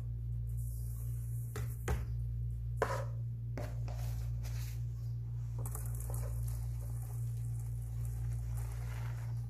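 A metal mesh sieve knocked and set down against a metal bowl, a few sharp clinks, then a soft rustling hiss as powdery baking soda is poured into the sieve. A steady low hum runs underneath.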